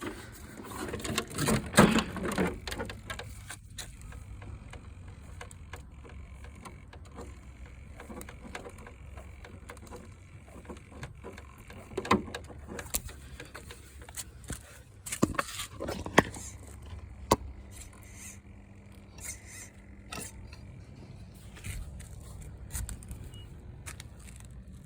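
Scattered clicks and knocks from an RC car being handled and checked, over a low steady hum, with a louder scraping noise about two seconds in.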